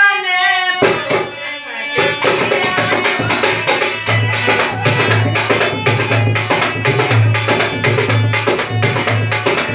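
Instrumental break in a Braj rasiya: a dholak drum played fast, with many sharp strikes and a repeating deep beat, over a harmonium. A sung line ends right at the start, and the drumming comes in at full strength about two seconds in.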